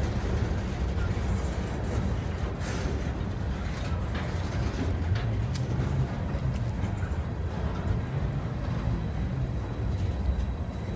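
Freight train of covered hopper cars rolling past, a steady rumble of steel wheels on the rails with a few short knocks.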